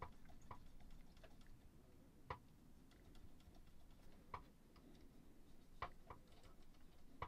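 Near silence with a few faint, scattered sharp clicks: small handling noises from work on a radio cassette recorder's tape mechanism.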